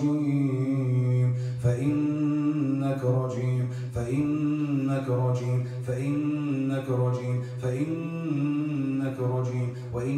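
A low voice holding long, droning chant-like notes one after another, with a short break about every two seconds and no clear words.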